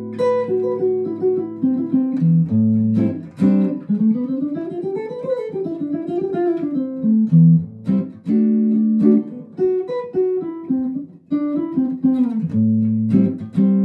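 Archtop jazz guitar playing a chord with a low A in the bass, then quick single-note arpeggio runs that climb and fall back. The chord is struck again twice. This is the four-note Lydian shape played against A minor, giving a modal, Dorian sound.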